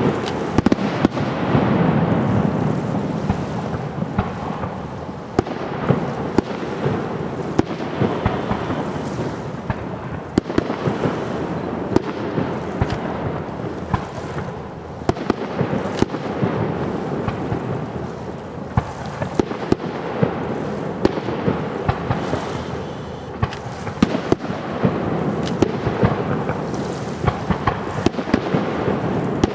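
Aerial firework shells bursting in an irregular series of sharp bangs, often one to two a second, over a continuous rumble.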